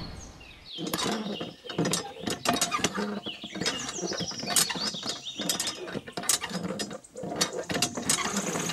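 Irregular small mechanical clicks and rattles, with a few short high squeaks, as of a small hand-worked mechanism.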